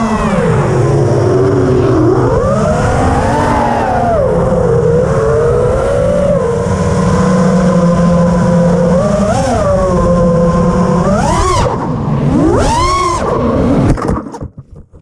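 FPV quadcopter's motors and propellers whining from its onboard camera, the pitch rising and falling with the throttle, with two sharp upward sweeps near the end. The drone tumbles about fourteen seconds in, and the motor sound breaks up and cuts off as it crashes.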